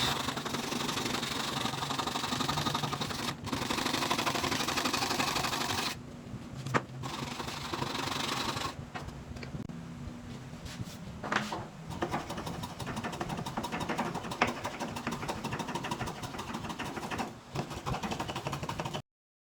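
Hand tool working wood by hand: a fast, dense run of scraping strokes that thins out after about six seconds, with a few sharp knocks later on. The sound cuts off abruptly near the end.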